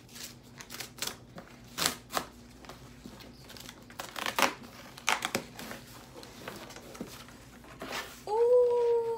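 Corrugated cardboard mailer being torn and pried open by hand: a series of short rips and scrapes, the loudest about two seconds in and again around four to five seconds. Near the end a woman starts a long, held, high hum of excited delight.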